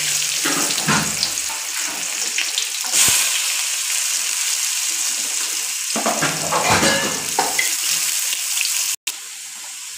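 Chopped onion sizzling in hot oil in a kadai. The sizzle surges about three seconds in, then cuts out briefly near the end and comes back quieter.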